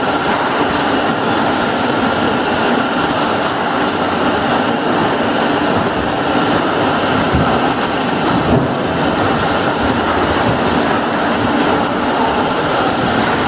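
Car-oil bottling and case-packing line machinery running steadily: a loud constant hum with dense clattering and clicks, and a few brief high squeaks.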